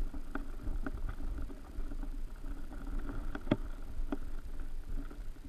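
Muffled underwater creek sound picked up by a submerged camera: a steady low rush of water with a few faint clicks and ticks, the clearest about three and a half seconds in.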